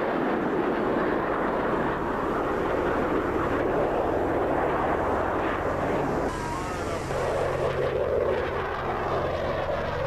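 Jet noise from Blue Angels F/A-18 Hornets flying over, a continuous loud rushing sound that shifts in tone about six seconds in.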